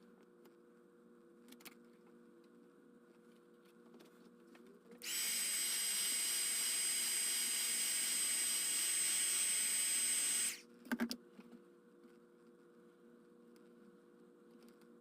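A small electric repair tool runs steadily for about five seconds with a constant high whine, then switches off, followed by a couple of sharp clicks.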